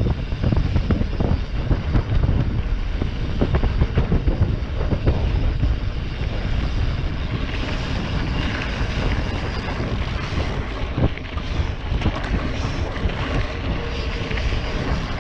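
Wind buffeting the microphone of a camera riding on a mountain bike moving along a trail, with frequent short knocks and rattles from the bike going over bumps. About halfway through, a brighter hiss of tyres on the trail surface comes up.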